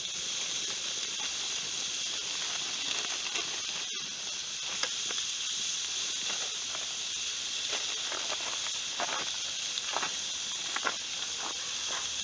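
Campfire cookout: a steady sizzling hiss with scattered crackles and pops, broken by a brief dropout about four seconds in.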